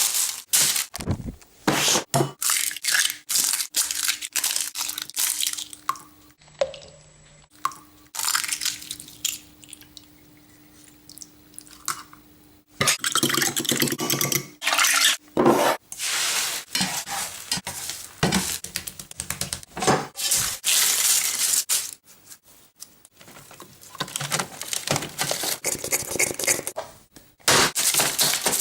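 Rapid, irregular clattering and knocking with wet splashing and dripping. A quieter spell about a third of the way in carries a faint steady low hum.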